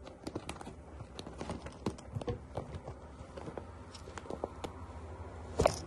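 Clear plastic zip pouch crinkling, with many small irregular clicks as hands handle it and work at its zip seal, and a louder crackle near the end.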